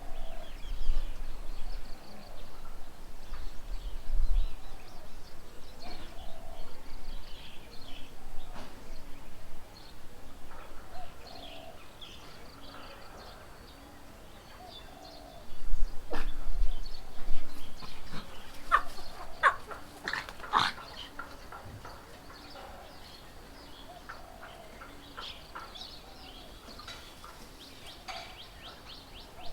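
Several birds chirping and calling in short repeated notes, with a run of louder calls about two-thirds of the way through. Bouts of low rumble come near the start and about halfway.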